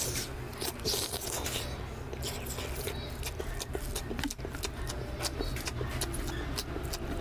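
Close-miked eating sounds: wet chewing and lip smacks, and fingers squishing rice into oily mutton fat curry, heard as a rapid, irregular run of small wet clicks.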